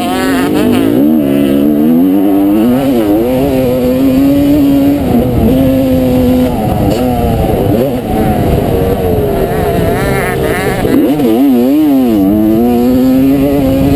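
1989 Honda CR250R single-cylinder two-stroke engine running hard under race load, its pitch repeatedly rising and falling with the throttle through corners and a climb, with quick up-and-down revs near the end. Heard up close from the rider's helmet, over wind noise.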